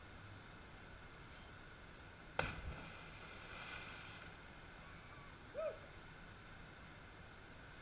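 A person jumping from a rock ledge into a river: a single sharp smack as they hit the water about two and a half seconds in, followed by about two seconds of splashing and bubbling. A brief call rises and falls about three seconds later.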